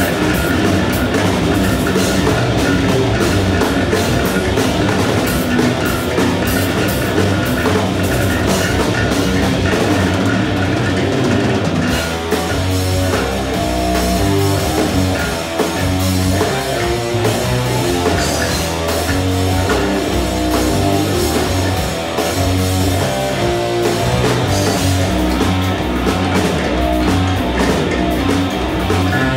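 A rock band playing loud and dense, with drum kit, electric guitar and bass. About twelve seconds in, the arrangement changes: the cymbals thin out and separate bass and guitar notes stand out.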